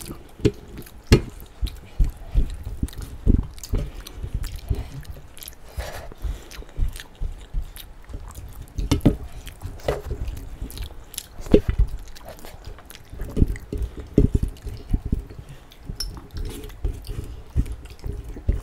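Close-up wet chewing and lip-smacking as two people eat rajma (kidney bean curry) and rice by hand, with irregular sticky clicks and squelches throughout.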